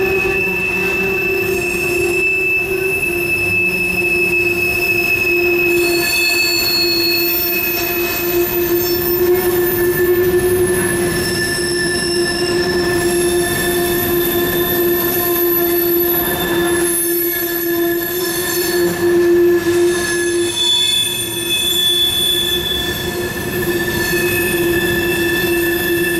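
Freight train wheels squealing on a tight curve: several loud steady whines from different wheelsets sound at once, fading and new ones taking over as the railcars roll past.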